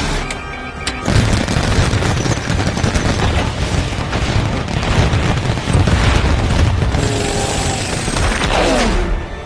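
Film battle soundtrack: rapid gunfire and heavy booms over a music score, with a quick rattling burst in the first second and a falling sweep near the end.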